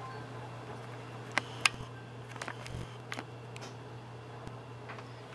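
Kitchen room tone: a steady low hum with a few faint scattered clicks, the two sharpest close together about a second and a half in.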